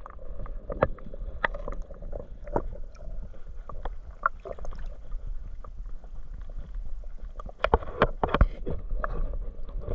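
Water heard through a submerged camera: a steady low rumble with scattered sharp clicks and knocks, busiest about eight seconds in.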